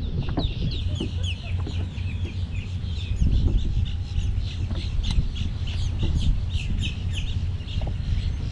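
Birds chattering: a rapid, continuous run of short, falling chirps, several a second, over a steady low rumble.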